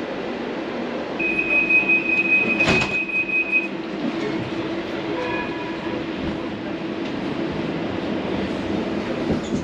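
Train carriage running with a steady hum. A high steady beep sounds for about two and a half seconds from about a second in, with a sharp knock partway through it.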